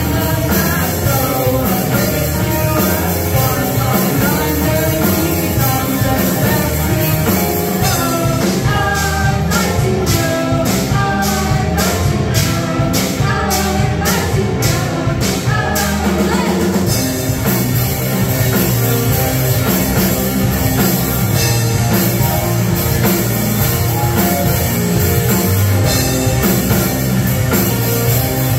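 Live rock band playing with sung vocals, electric guitars, keyboard and a drum kit. About a third of the way in, the cymbal wash drops back to a steady pulsing beat for several seconds before the full band comes back in.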